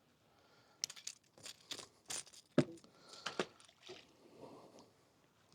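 Irregular light clicks and knocks of handling noise as a hook is worked out of a small catfish, with two sharper clicks in the middle.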